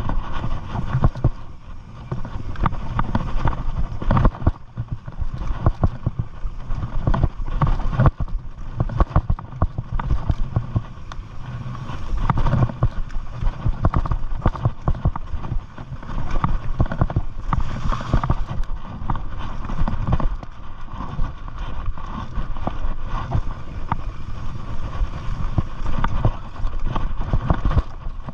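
Mountain bike riding over a rough dirt singletrack: tyres crunching on dirt and stones, with constant irregular rattling and knocking from the bike over bumps.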